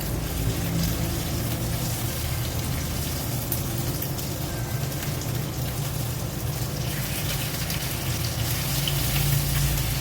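Dried fish frying in hot oil in a pan, a steady sizzle that grows brighter and a little louder about two-thirds of the way through.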